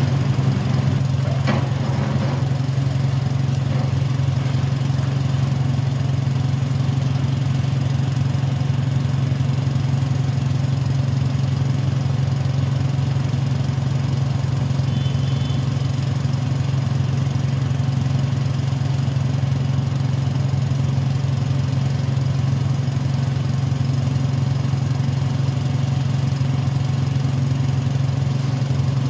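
Diesel engine of a Caterpillar high-reach demolition excavator running at a steady speed, a constant low hum. A couple of faint knocks about a second and a half in.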